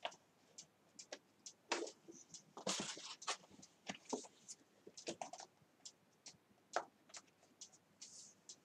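Paper wall calendar page being lifted and flipped over: faint scattered ticks and taps of the paper, with a louder rustle of the page about two and a half seconds in.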